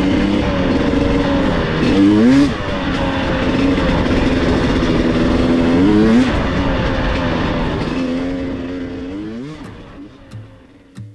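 Two-stroke dirt bike engine revving hard, its pitch climbing sharply about two, six and nine seconds in as it accelerates, then fading away near the end.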